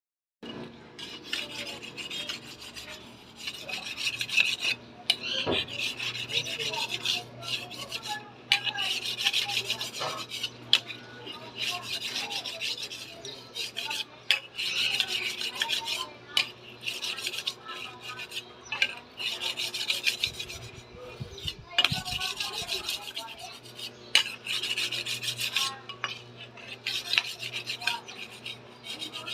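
Kitchen knife being sharpened: the blade scrapes in repeated rasping strokes with brief pauses between them, and a few sharp clicks.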